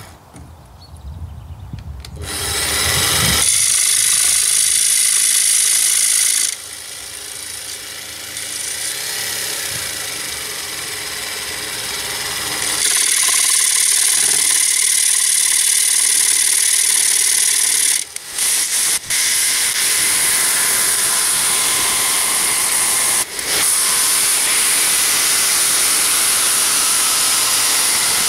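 Jigsaw with a carbide blade cutting through 2 mm steel plate. It starts about two seconds in and runs steadily, softer for a stretch in the middle, with a few brief stops in the second half.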